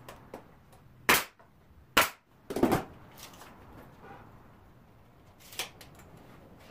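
Cordless nail gun firing into the wooden window frame's corner joint: three sharp shots in quick succession after about a second, and a fainter click near the end.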